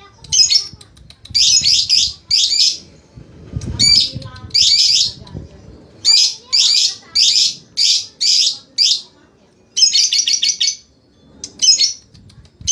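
Lovebird chattering in short, fast rattling bursts, several in quick succession with brief pauses between the runs.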